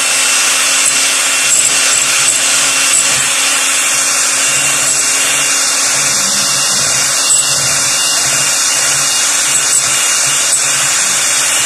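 Electric hand mixer running steadily at constant speed, its twin beaters whisking eggs in a glass bowl until they turn pale.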